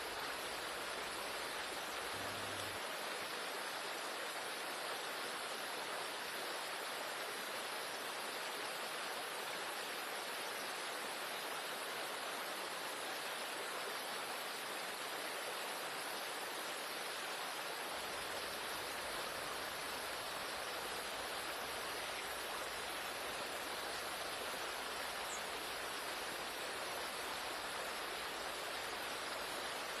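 Shallow stream water rushing and splashing over stones in a riffle below a waterfall, steady throughout.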